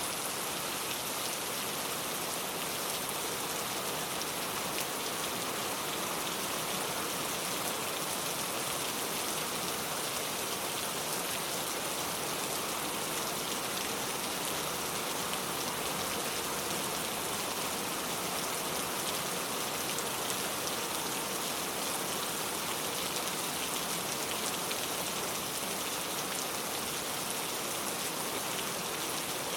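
Steady rain falling, an even hiss of many fine drops that holds at the same level throughout.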